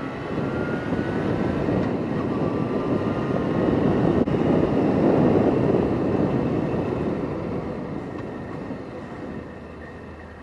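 Motorcycle under way: a steady rush of wind and engine noise that swells to its loudest about halfway through, then fades away near the end.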